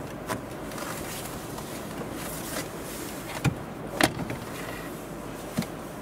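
Plastic retaining clips of a Volvo XC40 center console control panel snapping loose as the panel is pulled out by hand: a few sharp clicks, the loudest about four seconds in, over a steady background hiss.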